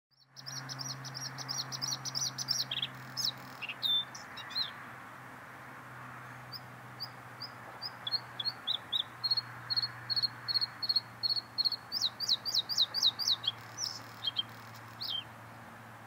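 Male bluethroat singing: rapid runs of repeated high notes and varied trills in two long phrases with a pause of about two seconds between them. A faint steady low hum lies underneath.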